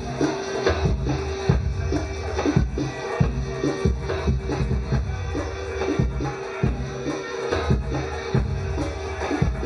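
Dance music with a steady drum beat over a held drone note.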